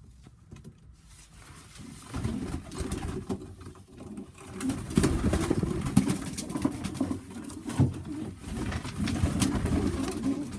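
Domestic pigeons cooing in a loft, a low wavering coo that starts about two seconds in and keeps going, with a few sharp clicks over it.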